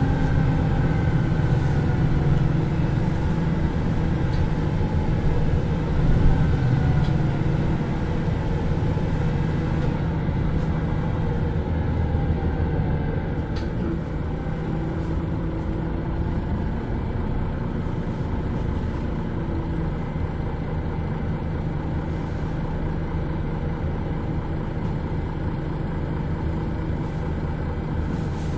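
Diesel engine of a MAN NL323 Lions City Euro 6 city bus running as the bus drives, a steady hum whose pitch rises and falls as it goes.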